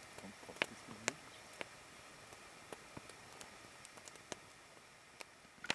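Faint steady hiss broken by sharp, isolated clicks and ticks, about one every second or less.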